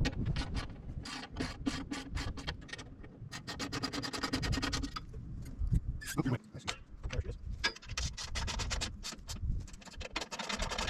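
Rapid rasping clicks of hand tools working on metal parts of a sawmill, in quick runs with short pauses, as a cover latch is fitted.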